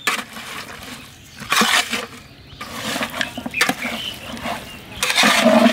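Long metal spatula stirring raw beef, onions and spice pastes in a large aluminium pot, with short scraping strokes four times.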